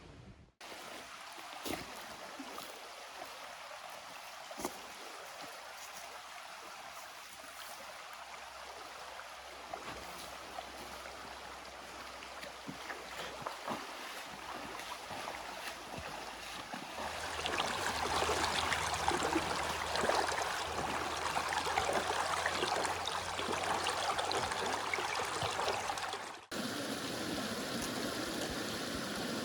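River water flowing and trickling steadily, with a few light ticks. It grows louder and fuller about halfway through, then changes abruptly near the end.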